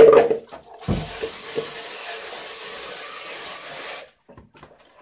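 A clatter, a thump, then water running into a plastic bucket of lead bullet cores to rinse them, stopping abruptly about four seconds in.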